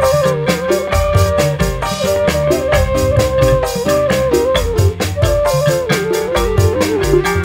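A live tarling-dangdut band playing an instrumental passage: a flute carries an ornamented melody with small slides and turns, over a steady drum kit beat, electric guitar and keyboard.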